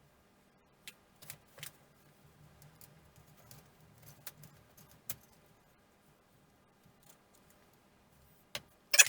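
Sparse light clicks and taps of small parts and tools being handled, with faint rustling between them and a sudden louder sound cutting in right at the end.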